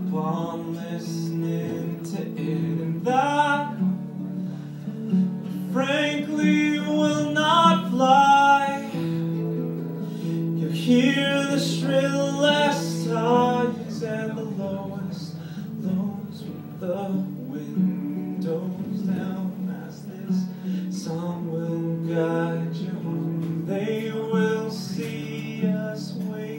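A man singing with his own acoustic guitar accompaniment in a live solo performance. The guitar plays throughout and the voice comes in phrases with guitar-only gaps between them.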